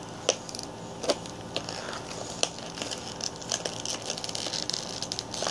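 Plastic toy packaging crinkling and crackling in a child's hands: a few sharp clicks in the first couple of seconds, then denser crackling from about three seconds in.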